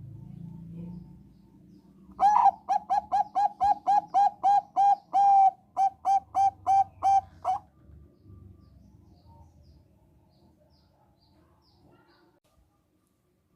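Zebra dove of the Thai 'perkutut bangkok' type singing: a run of about twenty quick, clear coo notes at roughly four a second, with a short break midway, starting about two seconds in.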